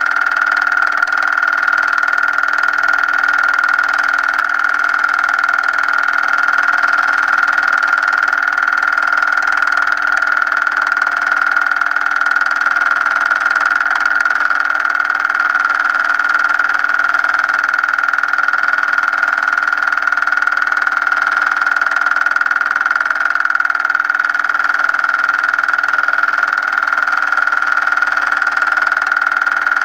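A steady mechanical whir with a high, unchanging whine and hiss, with no change or separate events.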